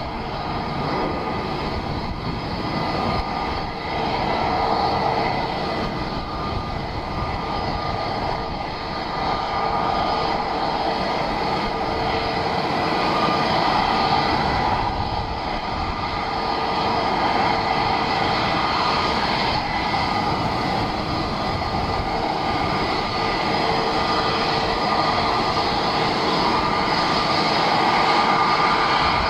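Jet airliner engines running steadily: a whine of several steady tones over a loud rushing noise, slowly growing a little louder.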